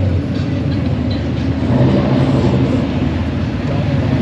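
Cars driving slowly past along a street, their engines giving a steady low rumble. The engine note changes about two seconds in as the next car comes by.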